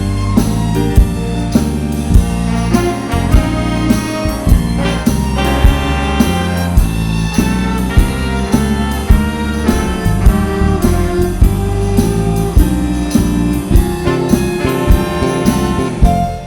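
Music with a steady drum beat and bass line, stopping abruptly near the end.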